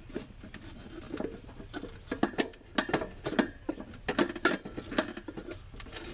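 Irregular clicks and creaks as gloved hands twist and tug at a hose connection on the air cleaner housing of a 1986 Chevy truck, working it loose. The noises come thicker after about two seconds.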